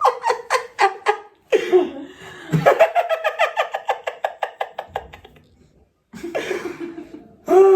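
A person laughing hard in rapid ha-ha pulses, about six a second, in two long bouts with a short gap about five seconds in.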